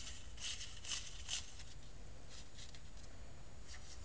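Short, light scraping and rustling as balsa rotor blades are turned by hand on a thin metal shaft, three quick ones in the first second and a half, then a few fainter ones. A faint steady low hum lies underneath.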